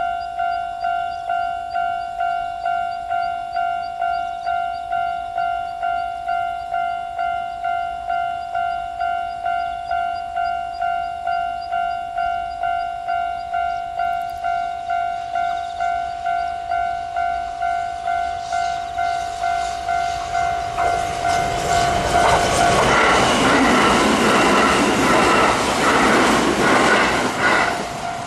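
Japanese level-crossing warning bell ringing in a steady pulse, nearly two strikes a second. About 18 s in, a Kintetsu 3200 series electric train approaches and passes, its wheels clattering over the rail joints. The train is loudest from about 21 s until near the end and drowns out the bell, which is heard again as the train clears.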